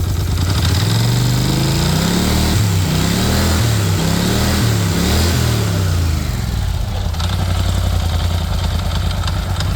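Polaris Sportsman 850 ATV's 850 cc parallel-twin engine running in neutral, blipped up and down several times in quick succession, then settling back to a steady idle. It runs without the knock it had before: the cause was a loose flywheel, now tightened back on.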